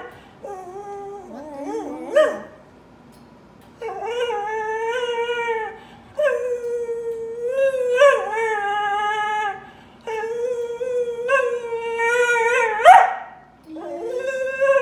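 Black-and-tan cocker spaniel crying in long, drawn-out howling whines, about four in a row, each held for a few seconds with a slight waver in pitch and short pauses between. Near the end comes one short, louder cry that rises sharply in pitch.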